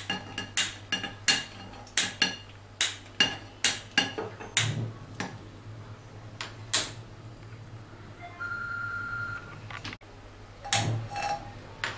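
Gas stove igniter clicking over and over as the burner is lit: a dozen or so sharp, ringing clicks at uneven intervals, followed by a brief steady high tone about a second long.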